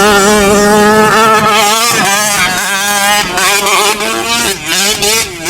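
Small two-stroke gas engine of a large-scale RC monster truck running at high revs. It holds steady for about two seconds, then rises and falls with the throttle, with brief dips near the end.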